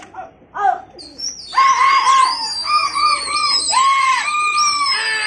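Two short calls, then from about a second in, shrill whistling with a wavering, gliding pitch over a run of short, high, repeated calls.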